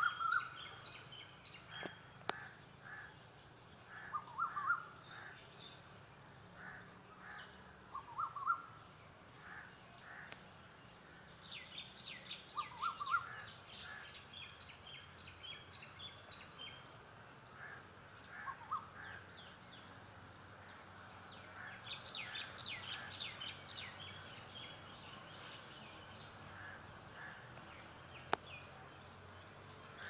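Morning birds calling: a short rising call repeats every few seconds, with bursts of rapid high chirping about a third of the way in and again past the middle.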